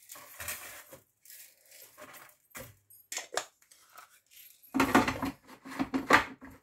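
Light clicks and rattles of a plastic spice-grinder jar and roasted whole spices being handled, turning into louder clattering and knocks near the end as the jar is closed and fitted onto the Kenwood mixer's motor base, ready for grinding.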